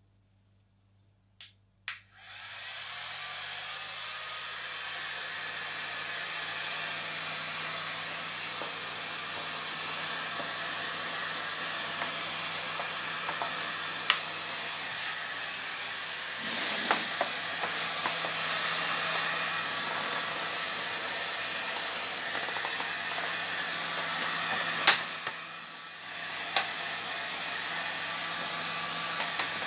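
Heat gun switched on about two seconds in and blowing steadily, with a low motor hum under the rush of air, as it shrinks heat-shrink film over a lithium battery pack. A few sharp clicks from the plastic film and handling, and a brief dip in the blowing about three-quarters of the way through.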